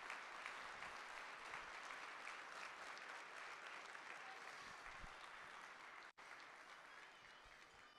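Audience applauding, a steady patter of many hands that slowly dies down near the end.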